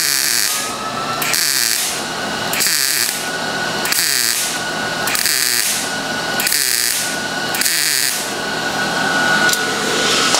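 MIG welder stitch-welding sheet-metal coupons: about seven short bursts of arc crackle, each under a second, coming about 1.3 s apart as each tack overlaps the last, stopping about eight and a half seconds in.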